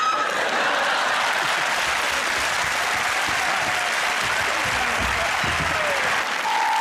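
Studio audience applauding. Near the end a steady electronic tone comes in: the buzzer signalling the end of the round.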